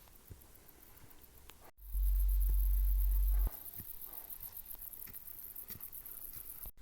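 Low wind rumble buffeting the microphone for about a second and a half, between faint scattered clicks and a fine high ticking; the sound breaks off abruptly twice.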